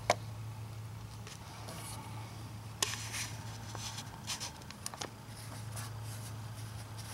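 Handling noise: light rustling and a few sharp clicks as a gloved hand and the camera move around the engine bay, over a steady low hum.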